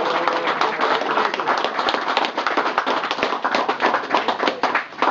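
A small group of people applauding: dense, irregular hand claps that thin out near the end.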